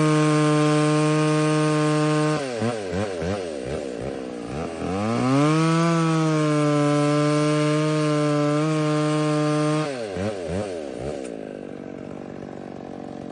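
McCulloch Pro Mac 605 two-stroke chainsaw running at high revs in a cut, the engine note dropping and wavering twice before climbing back, then settling to a lower, quieter run near the end.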